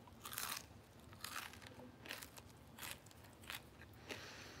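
A person chewing a mouthful of puffed rice cake close to the microphone: about six short, crisp crunches as the cake breaks between the teeth.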